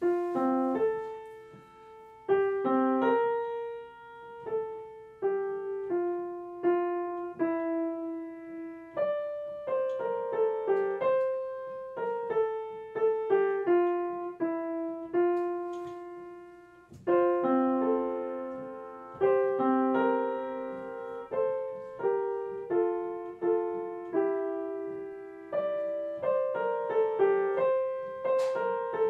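Solo piano music: a slow melody of single struck notes, each ringing and fading.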